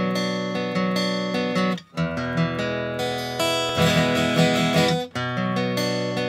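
Background music: strummed acoustic guitar chords in a steady rhythm, with short breaks about two seconds in and again near five seconds.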